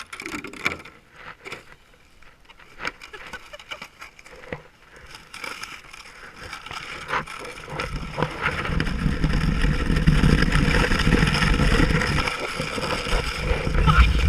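A sled sliding down an icy snow slope: scattered scrapes and knocks at first, then from about eight seconds in a steady, loud rushing that grows as it picks up speed, with wind buffeting the microphone.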